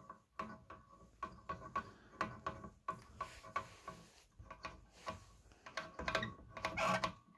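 Cam-operated mechanical step attenuator of a Schlumberger FS30 signal generator being turned by hand: a run of irregular clicks from its detent and switch contacts, with a faint metallic ring, a little louder near the end.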